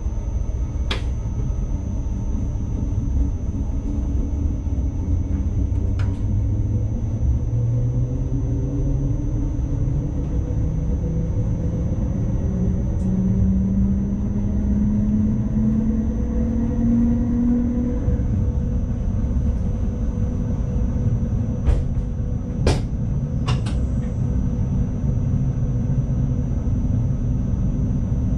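Running noise of an NS ICMm electric intercity train heard from its cab: a steady low rumble of the wheels on the track. A whine rises slowly in pitch around the middle, and there are a few sharp clicks.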